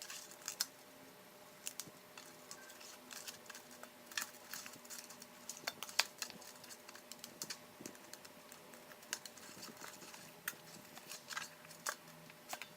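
Clear slime being handled, giving off irregular small sticky clicks and pops.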